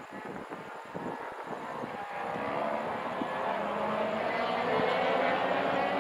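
Aircraft engine noise building steadily louder as a plane approaches, with a whining tone that glides slowly down in pitch.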